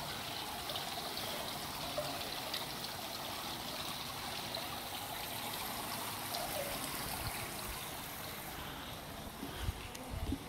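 Indoor fountain's central jet and ring of spray jets splashing steadily into its tiled basin, a continuous rush of falling water that grows fainter over the last couple of seconds. A few soft low thumps near the end.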